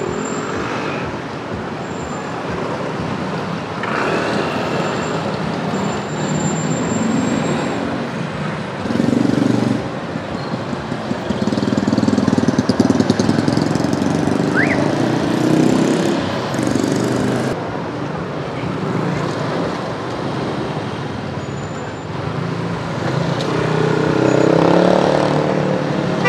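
Street traffic with motorbike and scooter engines running close by, swelling as bikes pull past several times over a steady traffic din.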